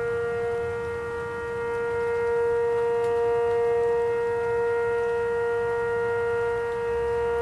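Tornado warning siren sounding a steady, unwavering tone that swells slightly louder about two seconds in.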